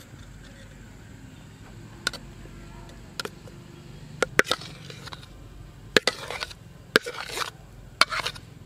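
Sharp knocks and short scrapes of a metal utensil against a steel bowl as thick rose-milk ice cream mix is scraped out into a plastic box, about one knock a second near the end.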